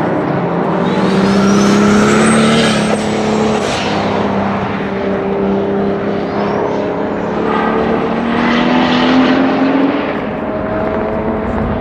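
Turbocharged BMW 535i E34's 3.8-litre M30 straight-six pulling hard twice, each time with a high turbo whistle that rises in pitch and then holds.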